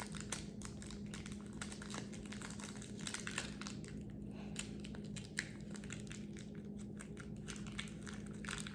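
Light, scattered clicks and faint rustling from hands handling a small plastic mini figure and its packaging, over a steady low hum.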